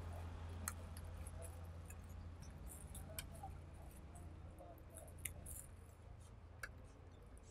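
Faint crinkling and a few sharp clicks of a thin plastic bag being handled and opened, over a low steady hum that slowly fades.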